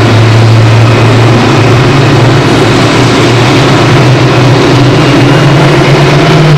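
Boeing 747-400's jet engines running as it taxis past, a loud steady hum that steps up in pitch about a second and a half in.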